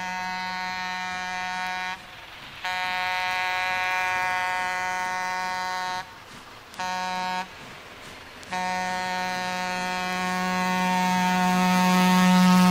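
Beatless breakdown in a late-1990s club dance mix: a long, buzzy, horn-like synthesizer tone held on one pitch, cut by short pauses about 2, 6 and 8 seconds in. It swells toward the end and slides down in pitch as the drums come back in.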